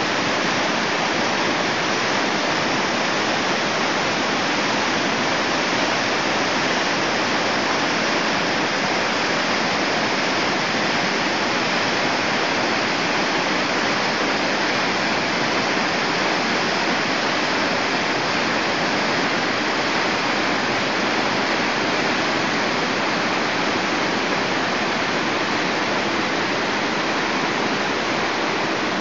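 Floodwater pouring over a river weir and through churning rapids: a steady, even rush of whitewater.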